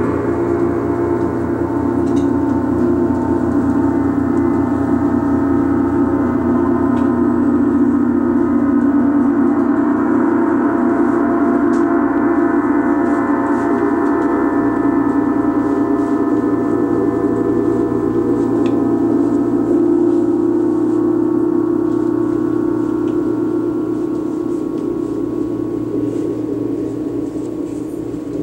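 Large Paiste gongs played with a mallet, sounding a continuous swelling wash of many overlapping ringing tones that eases off slightly near the end.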